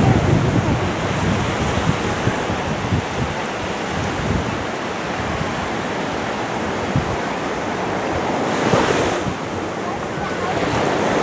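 Small waves washing onto a sandy beach, with wind rumbling on the microphone. A wave surges a little louder about nine seconds in.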